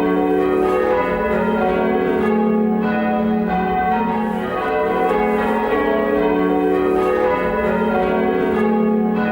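The eight church bells of a tower being change-rung, struck one after another in a steady rhythm, their ringing tones overlapping.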